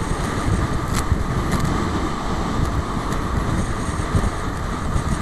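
Wind buffeting the microphone over the steady rush of water and spray from a banana boat being towed at speed across the sea.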